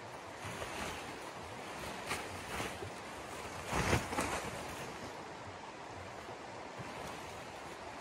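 Heavy canvas tarp rustling as it is picked up and lifted, with a louder flap of the fabric about four seconds in, over a steady background rush.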